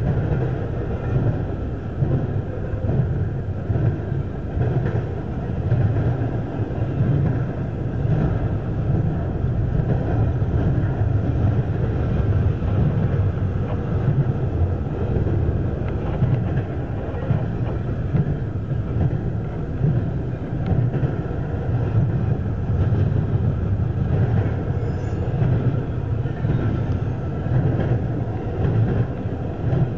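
Double-stack intermodal well cars of a CSX freight train rolling past, a steady rumble of steel wheels on the rails.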